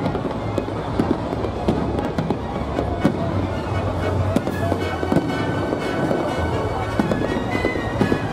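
Aerial firework shells bursting in quick succession, a steady run of bangs, with music playing alongside.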